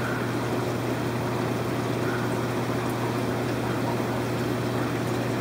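Steady low hum with an even hiss from the aquarium pumps and filtration running in a fishroom.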